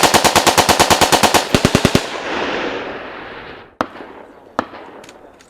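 Battlefield gunfire: a rapid burst of automatic machine-gun fire, about twelve rounds a second with one brief break, dying away into a long echoing tail, followed by a few scattered single shots.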